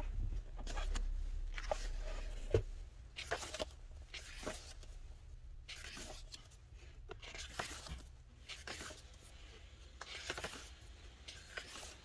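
Pages of a thick photo book being turned in quick succession, a short papery swish roughly once a second.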